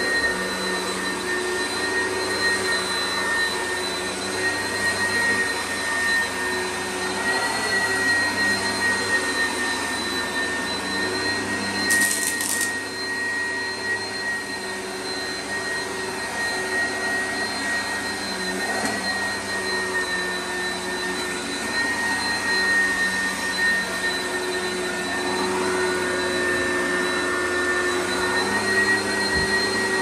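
Oreck XL upright vacuum cleaner running steadily as it is pushed back and forth over carpet, its motor giving a steady high whine.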